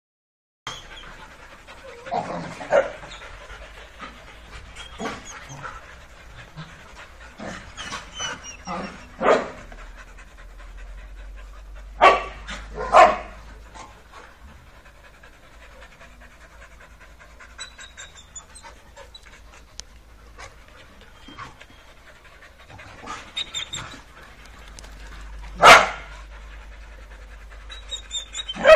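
A group of doodles panting as they play, with short barks every few seconds. The loudest barks come as two close together near the middle and one about 26 seconds in.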